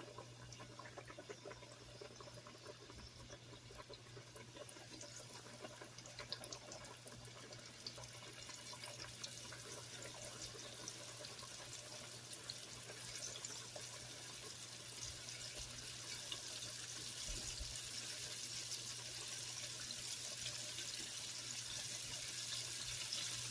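Floured chicken tenders frying in hot oil: a crackling sizzle that grows steadily louder as more pieces go in.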